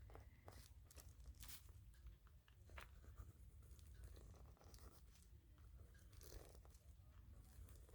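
Faint, irregular scratching and ticking of a gel pen writing on a painted paper surface.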